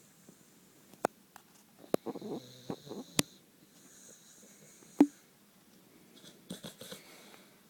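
Staffordshire bull terrier snoring in its sleep: breathy snores about every two seconds, broken by several short, sharp snorts, the loudest about five seconds in.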